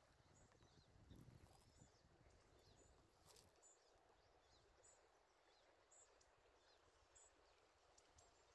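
Near silence: faint room tone with small high-pitched chirps about once a second and a faint low rumble that fades out about halfway through.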